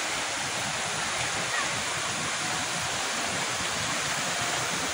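River rapids rushing over rocks and boulders: a steady, even rush of water.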